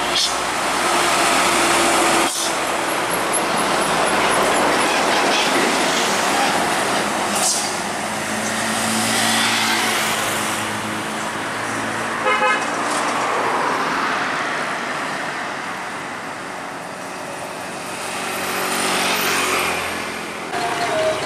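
Trucks and other road traffic passing, a steady rush of engine and tyre noise. A vehicle horn gives a short, rapid series of toots about twelve seconds in.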